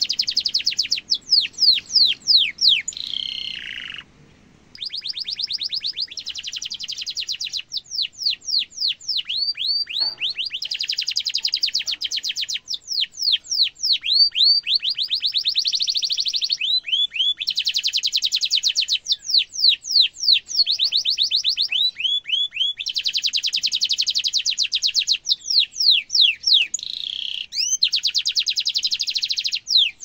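Domestic canary singing a long, nearly unbroken song: dense rolling trills alternating with runs of quick falling chirps, with one short break about four seconds in.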